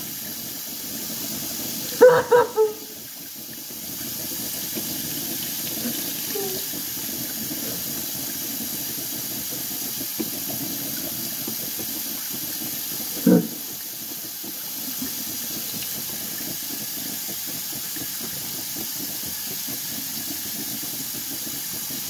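Kitchen faucet running steadily, its stream splashing onto a person's head and into a stainless steel sink. Two brief louder sounds break in, one about two seconds in and one about halfway through.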